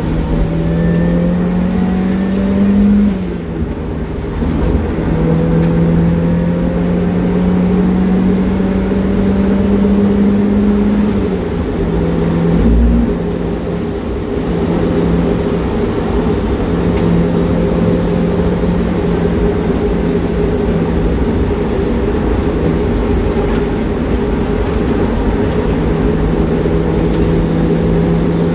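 Turbocharged Mazda MX-5 four-cylinder engine pulling hard on track, heard from inside the cabin. Revs climb, fall sharply at a gear change about three seconds in, climb again until about eleven seconds, drop, then hold fairly steady at speed. A brief low thump comes just before halfway.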